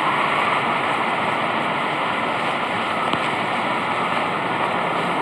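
A steady rushing noise with no distinct events, the kind of even outdoor hiss a phone microphone picks up on a street.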